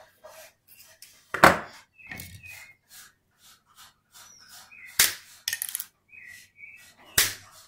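Needle-nose pliers working a short piece of thin drawn wire into a bent pin: irregular small clicks and scrapes, with three sharper clacks spread through.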